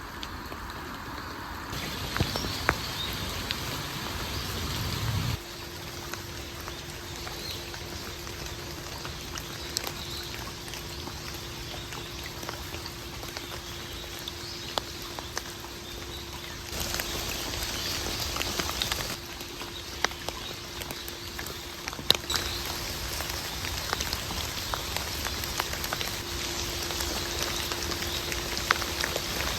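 Rain falling: a steady hiss with scattered drips ticking on nearby surfaces. The sound changes abruptly a few times, and a faint steady hum runs underneath from about five seconds in.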